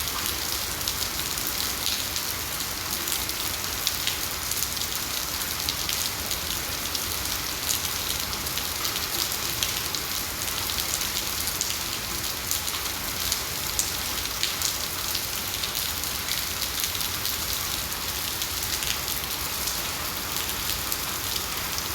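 Steady rain with no wind: an even hiss of rainfall dotted with many small drop ticks on surfaces.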